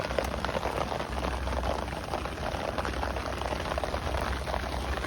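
Steady desert rain falling in a dense patter of many small drops, over a steady low rumble.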